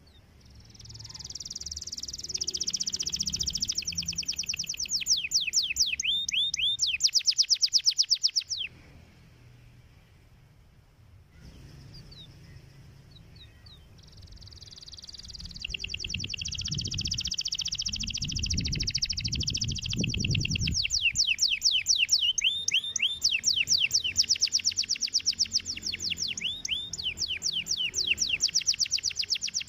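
Domestic canary singing: two long phrases of fast, high, rolling trills, the first breaking off about eight seconds in and the second starting after a pause of a few seconds.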